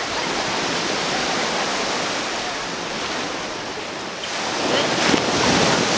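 Small ocean waves breaking and washing up on a sandy shore: a steady rushing wash that swells louder about four and a half seconds in.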